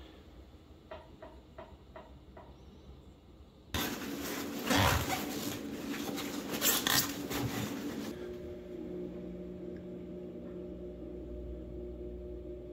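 Paper towel rustling and rubbing for about four seconds as a small spool pin holder is wiped clean, after a few light clicks of the part being handled. A low steady hum follows.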